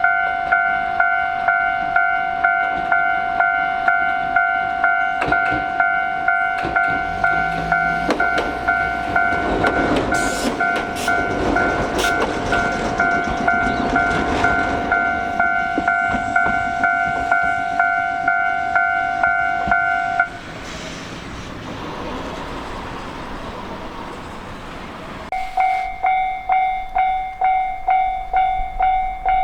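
Japanese level-crossing warning bell ringing at about two strikes a second while a train rumbles and clatters over the crossing. The bell cuts off about twenty seconds in, leaving the fading train noise, and starts ringing again a few seconds before the end.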